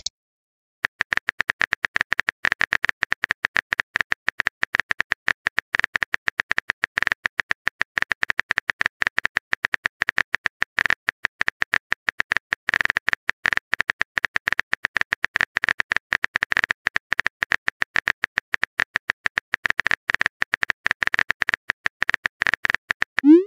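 Texting app's keyboard-typing sound effect: rapid, slightly irregular clicks, several a second, starting about a second in and stopping just before the end, as a message is typed out.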